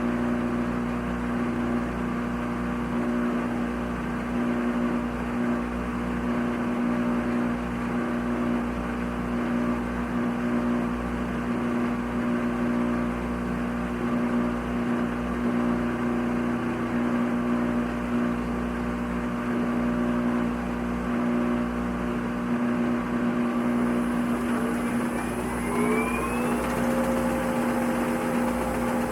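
Washing machine running with a steady motor hum. Near the end a whine rises in pitch and then holds at a higher note as the motor speeds up.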